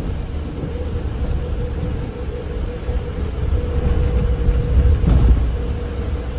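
Ride noise inside a moving vehicle: a steady deep rumble with a constant hum, growing a little louder near the end.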